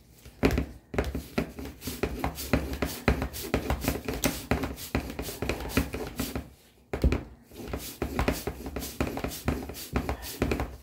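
A used Fram Tough Guard oil filter being turned by hand in an oil filter cutter, the cutter scraping and clicking rapidly as it cuts through the thin steel canister. The cutting pauses briefly about six and a half seconds in, then picks up again.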